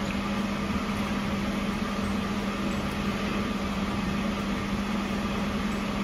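Steady hum of a running kitchen appliance: one constant low drone under an even hiss.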